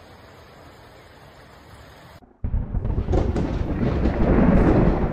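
Faint steady hiss, then after a brief drop-out a sudden loud, deep thunder-like rumble that swells through the last two and a half seconds: a logo-intro sound effect.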